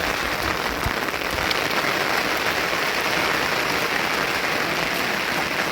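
Steady rain falling, an even hiss of drops with a few sharper single drop ticks.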